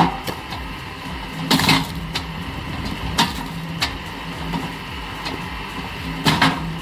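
A log-sawing machine with automated feed running with a steady mechanical noise and a low hum. Clattering knocks of logs and machine parts come every second or two, loudest about one and a half seconds in and again near the end.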